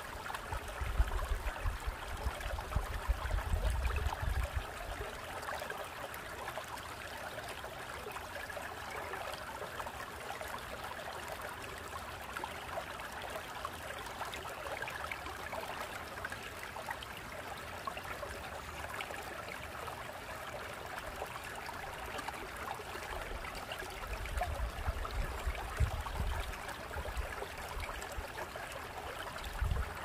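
Shallow mountain stream running over flat bedrock and between boulders: a steady rush and trickle of water. Brief low rumbles come and go in the first few seconds and again near the end.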